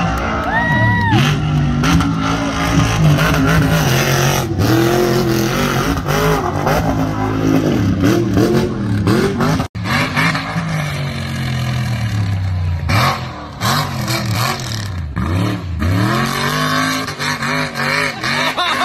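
Monster truck engine revving hard, its pitch rising and falling again and again.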